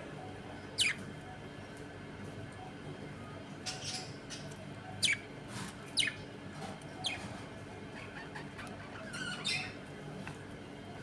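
Budgerigars giving scattered short, sharp calls, several of them quick chirps that drop in pitch, spaced a second or more apart, over a low steady hum.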